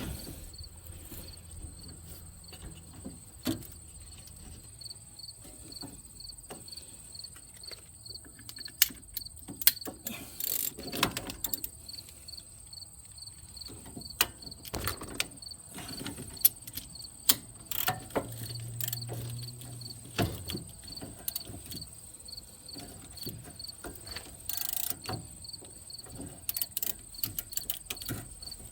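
Crickets chirping steadily: a high continuous trill with a second pulsing at about two chirps a second. Scattered sharp clicks and knocks of metal parts being handled sound over it.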